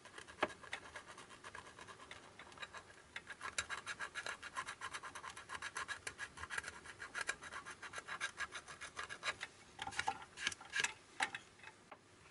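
Rapid back-and-forth scraping and rubbing at the top of a chip on a circuit board, clearing flux residue so its marking can be read: a quick, even run of several short strokes a second, then a few sharper scrapes near the end.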